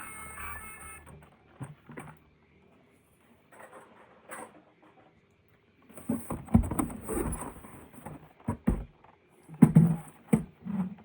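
Background music ends about a second in. After that come irregular knocks, taps and rustles of objects being handled, sparse at first and busier in the last few seconds.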